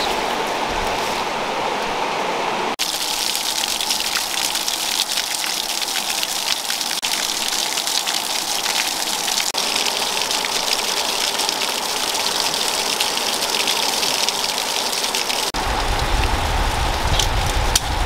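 Small waterfall splashing onto rocks and into a shallow pool, a steady hiss like rain. The sound changes abruptly about three seconds in, and again near the end, where a low rumble comes in.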